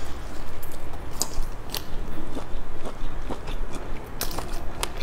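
Close-up biting and chewing of a sausage-shaped skewered snack, with sharp wet mouth clicks coming irregularly throughout.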